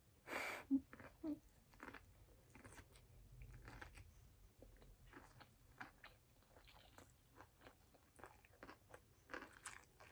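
Close-miked mouth sounds of a person chewing a poke bowl of raw fish, sushi rice, seaweed salad and onions: faint, scattered wet clicks and crunches. There is a brief, louder rush of noise about half a second in.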